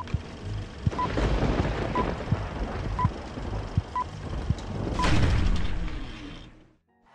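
Film-leader countdown: a short high beep once a second, six times, over crackling, hissing old-film noise with scattered low pops. The crackle swells after the last beep, then fades out near the end.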